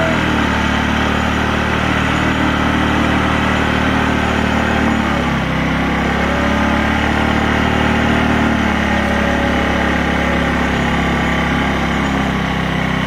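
Small motor scooter engine idling steadily, with a slight dip in pitch about five seconds in.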